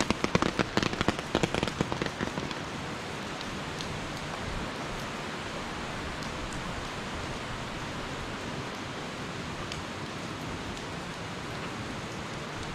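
Steady hiss of rain falling, with a quick irregular run of sharp taps and knocks over the first two seconds or so.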